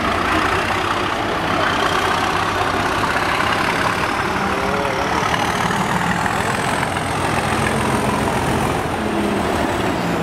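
Colas Rail Freight class 37 diesel locomotive's English Electric engine running loud under power as it approaches and passes close, with a thin high whistle that climbs and then falls away near the end.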